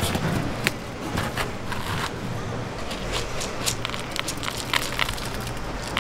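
Dried shiitake mushrooms and chunks of vegetable being piled by hand into a stainless-steel mesh stock basket: irregular light clicks, knocks and crackles.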